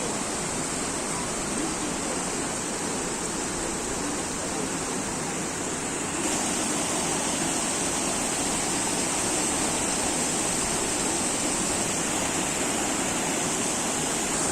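Steady rushing of a waterfall about 20 m high, the Chervonny falls, with no break in the sound. It gets a little louder and brighter about six seconds in.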